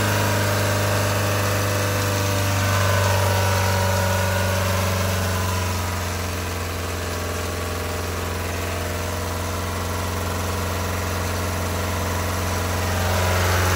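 Four-cylinder truck diesel engine with an inline injection pump running steadily at idle. It is the engine that has been revving up on its own and cannot be shut off.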